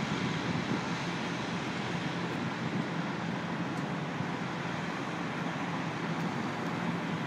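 Steady drone of heavy dockside machinery: a constant low hum under an even mechanical rush, with no distinct knocks or changes.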